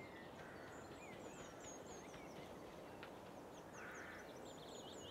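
Faint woodland ambience: birds chirping in many short, high calls over a low, steady background hiss.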